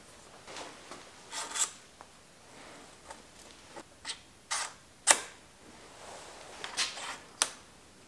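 Bicycle fork steerer and angle headset parts being fitted together by hand: a string of sharp clicks and short scraping rubs of metal and plastic parts, the loudest click about five seconds in.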